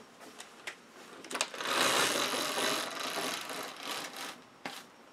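Roller blind pulled down by its bead chain: a few clicks, then a rattling whir of about two and a half seconds as the blind rolls down, and a couple of clicks as it stops.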